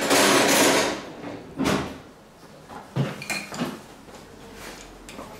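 Workshop clatter during scooter engine work: a loud burst of noise lasting about a second, then a few separate metallic knocks and clinks of tools and engine parts being handled.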